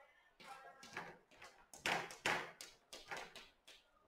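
Chalk writing on a chalkboard: a run of short tapping and scraping strokes as letters and symbols are written.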